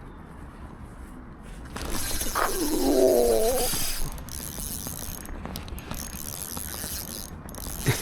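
Spinning reel being cranked during a lure retrieve, a steady mechanical whirring. Between about two and four seconds in, a louder hiss swells with a short wavering pitched sound over it.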